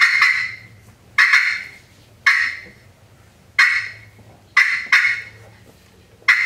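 Friction turkey call worked as the cutting of an excited hen: sharp, loud clucks spaced roughly a second apart, one pair coming in quick succession, each trailing off quickly.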